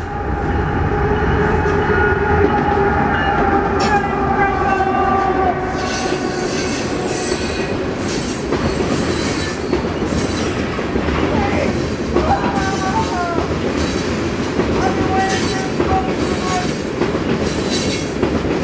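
Norfolk Southern manifest freight passing at speed: the locomotives go by first with a steady held tone over the engine noise for about five seconds. Then a long string of tank cars rolls past with a steady rumble and wheel clatter, and brief wheel squeals about twelve and fifteen seconds in.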